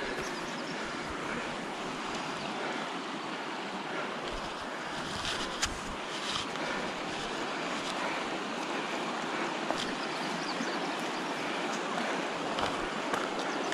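A stream rushing steadily, an even, unbroken hiss of moving water, with a few brief clicks.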